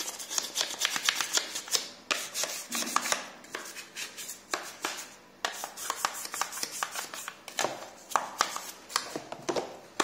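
A stiff brush scrubbing a plastic washing-machine detergent drawer in quick, uneven strokes, with a brief pause about halfway. It is working a vinegar-and-soap mixture into the compartments to scour off detergent residue and limescale.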